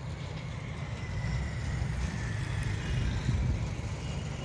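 Metre-gauge YDM4 diesel locomotive's ALCO engine running in the distance, a steady low rumble that grows slightly louder as the train approaches.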